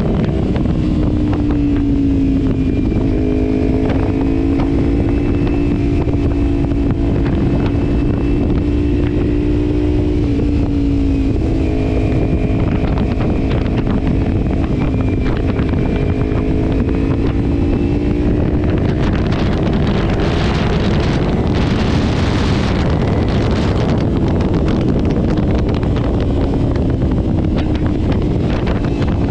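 Kawasaki Ninja 300 parallel-twin engine with a Leovince exhaust, baffle removed, running at cruising speed, its pitch sagging and picking up again a few times. Heavy wind rumble on the microphone runs under it, with gusty wind hiss swelling about two-thirds of the way through.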